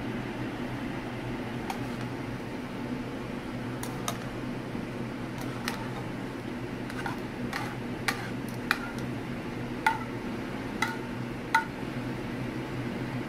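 A metal spoon clinks and scrapes against an aluminium sauté pan as sauce is spooned out onto a plate: a dozen or so sharp, ringing clinks, sparse at first and thicker and louder in the second half. A steady fan hum runs underneath.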